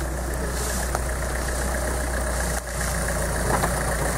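Toyota Land Cruiser off-road truck's engine running steadily at low revs while the truck crawls around a tree, with a brief drop in level about two and a half seconds in.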